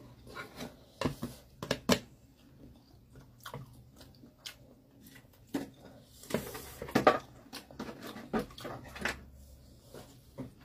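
Chopsticks clicking and tapping against the plate at irregular times while instant noodles are stirred and mixed, with a louder cluster of taps about seven seconds in.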